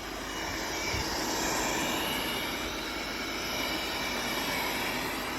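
Cecotec Conga 8290 robot vacuum cleaner running: a steady whine from its motor over the hiss of its suction, with a soft bump about a second in.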